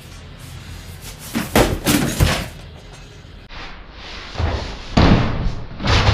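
Clusters of knocks and clattering thuds, about a second and a half in, again around four to five seconds in, and near the end: hard plastic scooter body parts, such as the under-seat storage box, being handled and set down.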